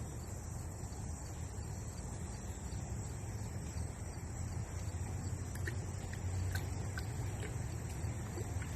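Outdoor ambience: a steady low rumble under a steady high hiss, with a few faint short chirps in the second half.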